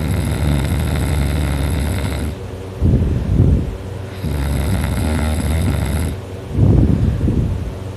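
A teenager snoring loudly in deep sleep, in a regular cycle about every four seconds. Each long, steady, low snore is followed by a shorter, louder burst of breath, twice over.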